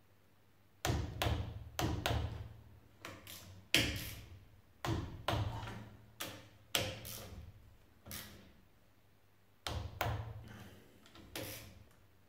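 Torque wrench ratcheting in short bursts of sharp clicks, about fifteen irregular strokes, as the engine's cylinder head nuts are tightened to about 20 N·m.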